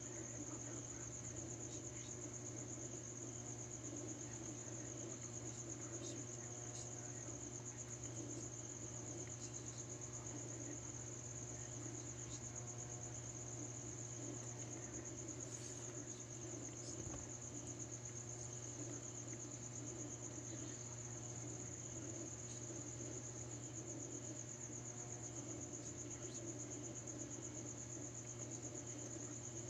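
A cricket trilling steadily on one high note, over a low steady hum.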